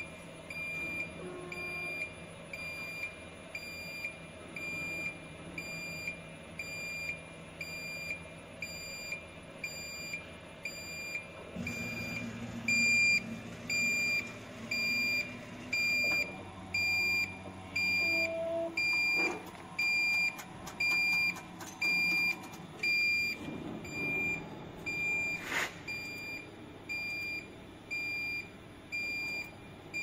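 An electronic beeper on a CNC wheel repair lathe sounds a short, high beep about once a second. About twelve seconds in, a low machine hum starts up, and there is a single sharp click later on.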